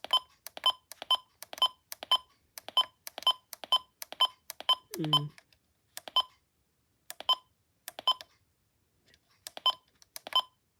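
Weather radio's button beeps as its alert settings menu is stepped through: a quick run of short, identical beeps, about three a second, then slower, spaced-out beeps after about five seconds.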